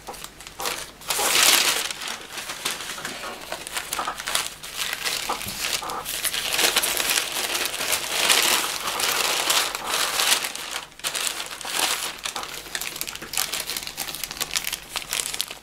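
Thin wrapping paper crinkling and rustling as it is lifted and unfolded by hand, in uneven bursts that are loudest about a second and a half in and again midway.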